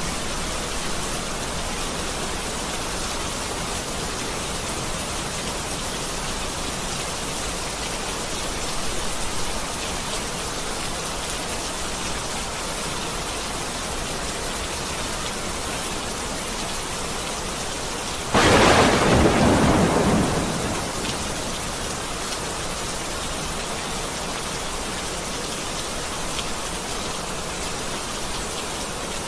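Steady rain falling, with a sudden loud thunderclap about two-thirds of the way through that rumbles away over a couple of seconds.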